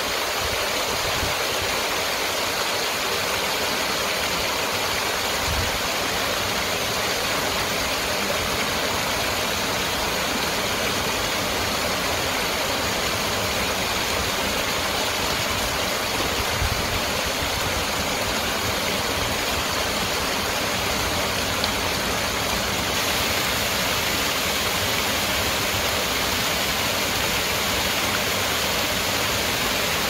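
Small waterfall spilling over stone ledges into a pool: a steady, continuous rush of water.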